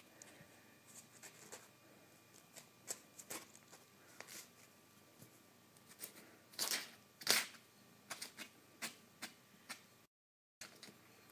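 A cat's paws patting and scratching at loose sheets of printer paper: irregular light taps and paper crinkles, with two louder rustles a little past the middle.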